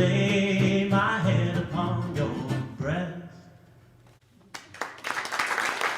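Closing bars of a country-style song: a man sings the final line over acoustic guitar, and the music fades out about three and a half seconds in. About a second later a steady hiss-like noise starts and runs on.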